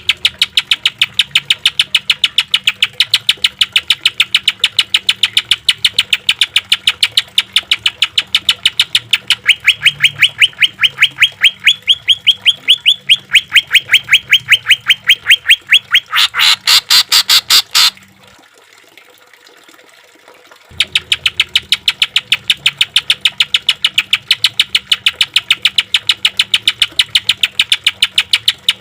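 Green leafbird (cucak ijo) singing a long run of rapid, evenly spaced sharp notes, about six a second, rising a little in pitch partway through. A faster, denser burst about two-thirds in breaks off suddenly, and after a couple of seconds' pause the rapid notes start again.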